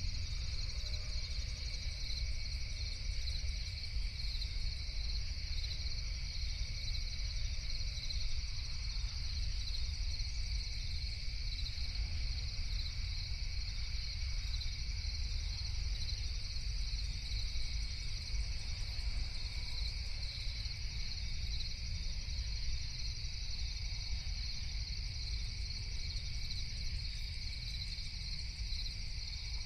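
Steady night chorus of crickets, a continuous high-pitched trilling, over a constant low rumble.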